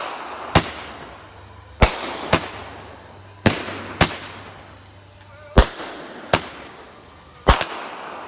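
Fireworks going off: eight sharp bangs, mostly in pairs about half a second apart, with a new pair roughly every two seconds. Each bang trails off in an echo.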